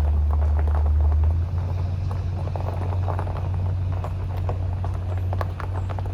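Car driving slowly, heard from inside the cabin: a steady low road rumble that drops a little about a second and a half in, with many small scattered clicks and crackles over it.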